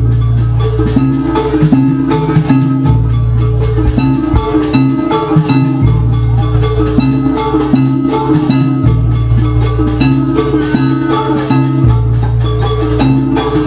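Jaranan music from a live gamelan-style ensemble: metal mallet instruments play a fast repeating melody over drums, with deep sustained bass notes that change about every three seconds.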